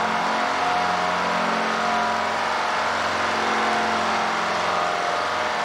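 Railway diesel engine running steadily at an even level: a low hum with shifting higher tones above it.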